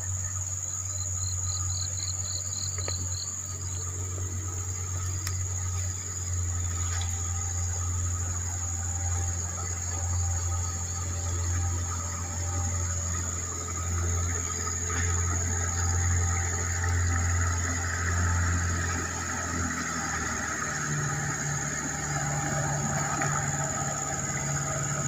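Small boat's motor running steadily as the boat approaches, its low drone rising in pitch about 20 seconds in. A constant high-pitched insect buzz of crickets or cicadas runs underneath.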